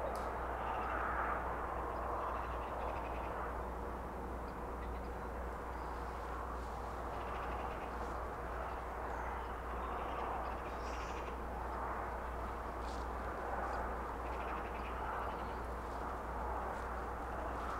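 Steady outdoor ambience: a rushing haze that swells and eases over a low steady rumble, with a few short rasping bird calls now and then.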